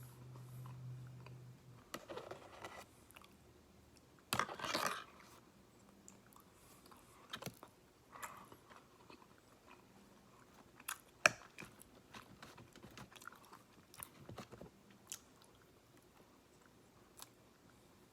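A person chewing and crunching a boneless fried chicken meal close to the microphone, with scattered sharp mouth clicks. The loudest crunchy bite comes about four and a half seconds in.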